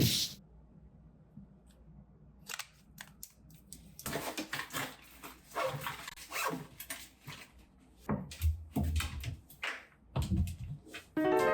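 Small objects being handled: scattered clicks, taps and rustling, with a few dull thumps in the second half.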